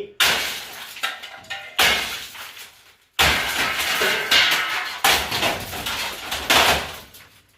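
A hammer smashing a small electric oven: about six heavy blows, each a sudden crash of breaking glass that dies away over a second or so.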